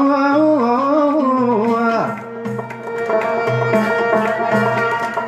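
Chaabi-style ensemble playing an instrumental passage between sung lines. For the first two seconds a sustained melody bends and slides in pitch; then a banjo and other plucked strings play over a low bass figure that repeats about twice a second.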